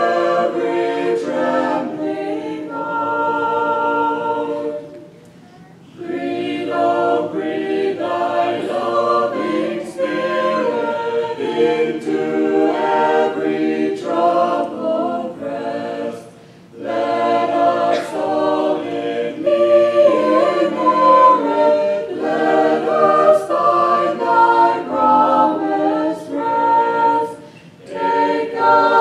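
Small mixed choir of men's and women's voices singing a cappella in harmony, with short breaks between phrases.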